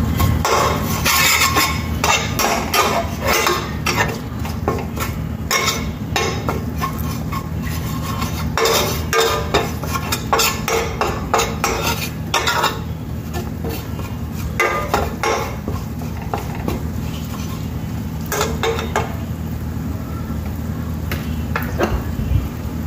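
Metal spatula scraping and clinking against a stainless steel pan while stirring chopped garlic in oil. The clatter comes in quick runs, busiest in the first half and thinning out after that, over a steady low hum.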